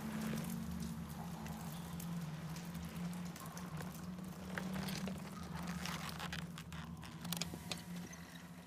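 A low, steady ambient drone with small scattered clicks and rustles as headphones are put on and a cassette Walkman is handled, with a few sharper clicks a little after seven seconds in.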